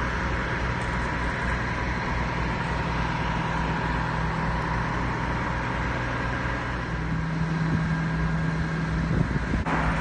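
Enclosed car-carrier trailer's hydraulic rear liftgate door in operation: a steady mechanical hum and whine over a low rumble. The low tone grows stronger about seven seconds in, and the whine stops just before the end.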